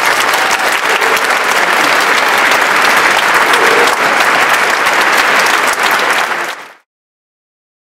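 Audience applauding, a dense clatter of many hands clapping, which fades out quickly near the end.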